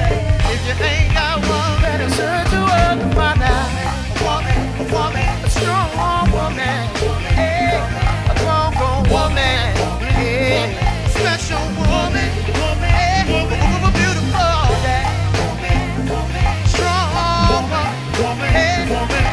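Live go-go band playing crank-style music: heavy bass and steady drums under a wavering lead melody line.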